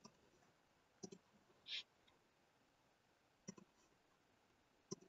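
Faint computer mouse clicks, three of them spread a second or two apart, against near silence, with a brief soft hiss between the first two.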